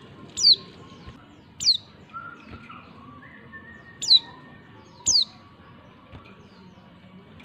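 Female white-eye (pleci) giving short, sharp chirps that each sweep steeply downward in pitch, four in about five seconds: the call used to stir male white-eyes into answering.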